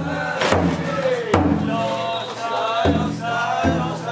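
Group of voices chanting in festival song, with a few sharp taiko drum strokes and a steady low hum underneath.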